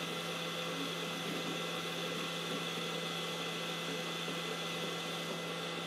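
Hot-air gun of a YiHua 853D rework station blowing steadily in its cradle, the fan running on to cool the heating element: an even whirring hiss with a constant hum.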